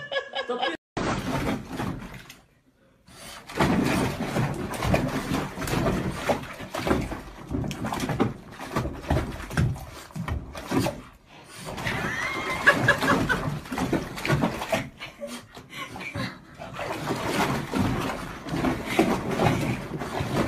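A puppy paddling in a bubble-filled bathtub: water splashing and sloshing irregularly, with the puppy's own noises and a brief higher pitched sound about twelve seconds in.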